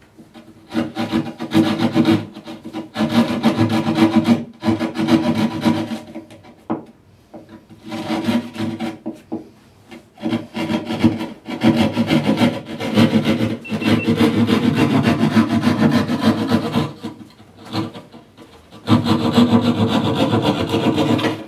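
A Sawzall (reciprocating-saw) blade held in the hand sawing through drywall, in runs of quick back-and-forth strokes with short pauses between them.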